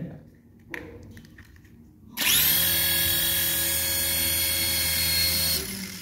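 Exceed toy RC helicopter's small electric motor and twin rotors spinning up about two seconds in and running with a steady high whine, then switched off and winding down near the end.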